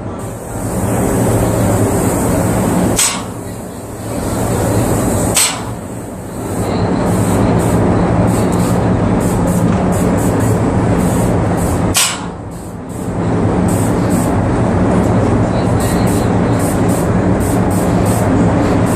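Pneumatic airless paint sprayer running while the gun sprays: a steady hiss over a low hum, broken by sharp pops about three, five and a half and twelve seconds in, each followed by a brief dip in the noise.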